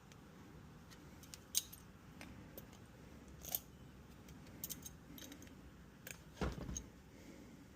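Faint, scattered clicks and metallic clinks of hand tools and small fittings being handled, with a duller knock about six and a half seconds in.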